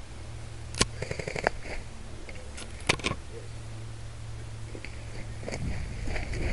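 A few sharp cracks, the first about a second in and the last near three seconds, with a quick run of clicks between them; rustling of movement through woodland undergrowth builds toward the end over a steady low hum.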